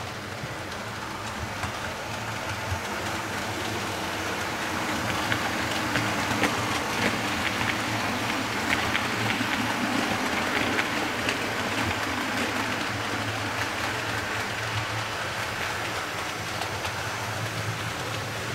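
An OO gauge model train runs past on the layout: a rolling noise with quick clicks of wheels over rail joints, louder in the middle as it passes, then fading, over a steady low hum.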